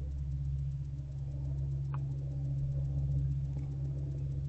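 Steady low electrical hum from the nest box camera's audio, with one faint click about two seconds in.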